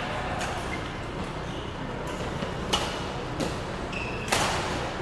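Badminton rackets hitting a shuttlecock: three sharp strikes, the last the loudest, over the steady background noise of a large sports hall.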